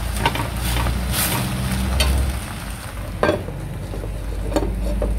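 Quintonil greens frying in a little oil in a clay cazuela, a steady sizzle. Several sharp clinks come from the glass lid and a cooking utensil against the pot.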